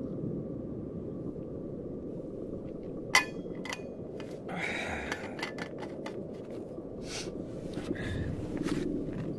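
Camping gear being handled inside a tent: a sharp click about three seconds in, then a string of small clinks, knocks and rustles over a steady low rumble.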